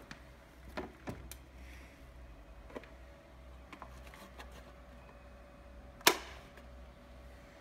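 Light plastic knocks and clicks as the extraction nozzle of a Blue Evolution S+ steam-vacuum cleaner is handled, then one loud sharp click about six seconds in as the nozzle is pushed onto the handle wand, over a faint steady hum.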